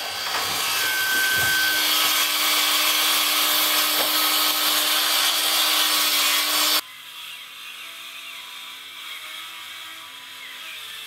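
Electric power saw cutting through wood, a loud steady cut with a brief high whistle about a second in. It stops abruptly about seven seconds in, leaving a much quieter hiss.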